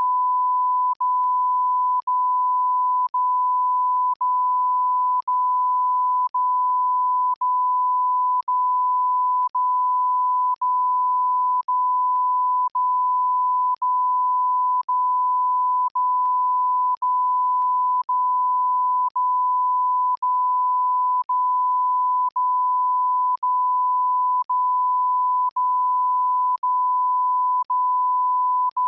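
Censor bleep: a single steady, high-pitched pure tone held without change, broken by a tiny click-like dropout about once a second.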